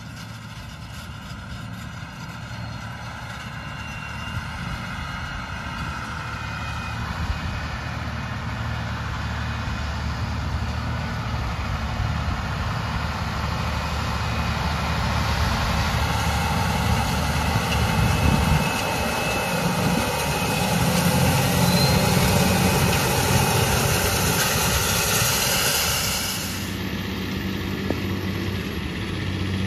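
John Deere tractor engine running steadily at work in the field, growing louder as it draws near, with a rushing noise over the engine. The sound drops abruptly near the end.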